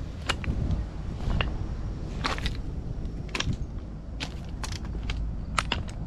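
A dozen or so sharp, irregular clicks and clacks of hard objects over a steady low rumble.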